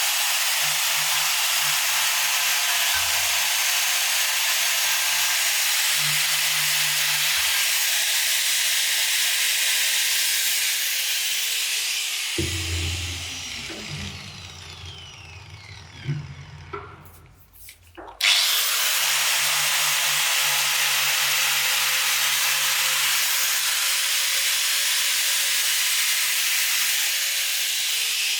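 A power tool running steadily against a workpiece with a hissing, abrasive sound. It winds down about twelve seconds in, stops, and starts again at full speed about six seconds later.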